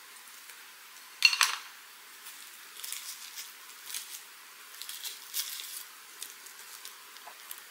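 Chopsticks clink sharply against a dish once, with a short ring, about a second in. Then come soft, crisp rustling and crinkling sounds as a wrap of dried laver with toppings is folded in the hands.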